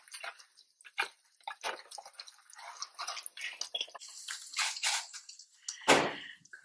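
Pepper grinder twisted over eggs frying in a pan: irregular light crackles and sizzle. About six seconds in there is a loud knock as the grinder is set down.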